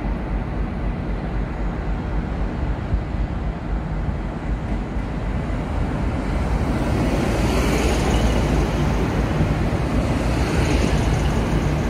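V/Line VLocity diesel multiple unit coming into the platform, its underfloor diesel engines running together with wheel-on-rail noise, growing louder about halfway through as the cab draws level and the cars roll past.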